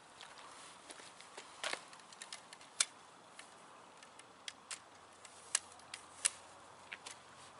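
Irregular light clicks and taps from a DSLR camera and tripod being handled and set up, over a faint steady hiss.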